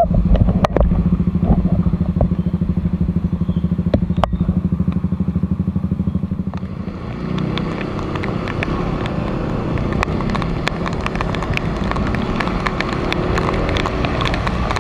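Honda PCX150 scooter's single-cylinder engine running at low speed with an even pulse. After about seven seconds it gives way to a steady rush of riding on a wet road, with many sharp ticks of raindrops hitting the camera.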